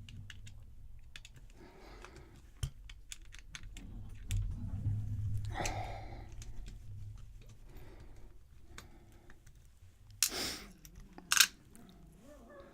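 Small metal lock parts and picking tools being handled during disassembly of a challenge lock: scattered light clicks and ticks, a quick run of them a few seconds in, and two louder sharp clacks near the end.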